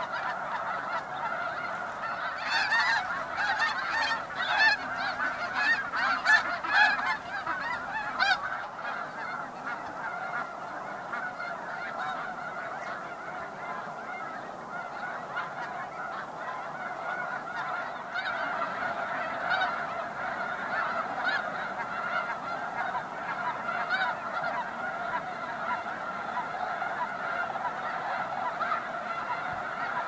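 A large flock of snow geese calling, a continuous chorus of many overlapping honks. The calling is loudest and sharpest from about two to nine seconds in, then settles into a steady din.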